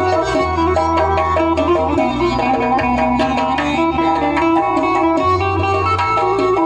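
Uzbek folk ensemble playing an instrumental passage: a quick plucked tar melody over doira frame-drum strokes, accordion and a keyboard bass line that changes note every second or two.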